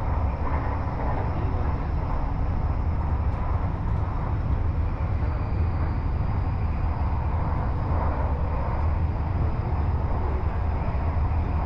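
Bangkok Airport Rail Link electric train heard from inside the carriage while running at speed: a steady low rumble of wheels on rail, with a faint high whine that drops slightly in pitch about five seconds in.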